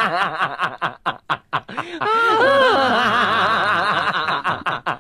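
Laughter: high-pitched, giggling laughs in short rising-and-falling bursts, cutting off suddenly at the end.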